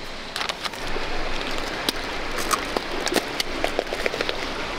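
Steady rain hiss with irregular sharp clicks scattered through it.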